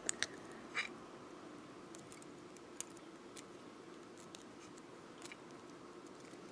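Round-nose pliers and fine beading wire clicking as the wire ends are gripped and twisted: a few clicks in the first second, then sparse faint ticks, over a low steady hum.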